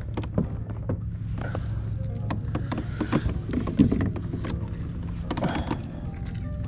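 Irregular clicks, taps and knocks of fishing tackle and lures being handled aboard a plastic kayak, over a steady low hum.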